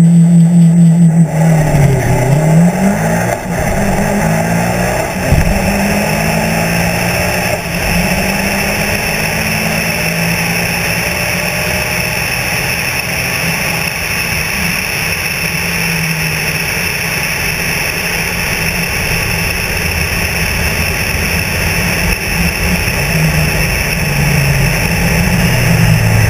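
Mitsubishi Lancer Evolution IX's turbocharged four-cylinder, on a stock turbo with cams, exhaust and tune, making a quarter-mile drag pass. It is held at high revs on the line, then accelerates hard with several quick upshifts in the first few seconds. After that a steady rush of wind and road noise covers most of the engine, which comes back louder near the end.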